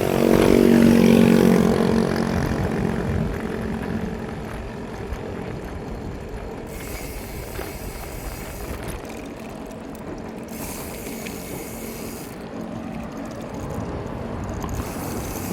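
A motor vehicle's engine passes close by in the first few seconds and fades, followed by steady wind and road noise from riding a bicycle, with the clicking of the bike's ratcheting rear hub.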